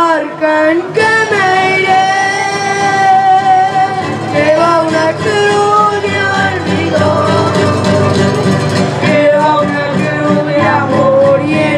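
Live song by a trio of boys singing to their own acoustic guitars.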